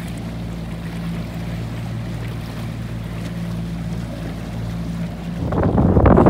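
A motorboat engine running at a steady low idle, an even low hum. Near the end, wind buffets the microphone and drowns it out.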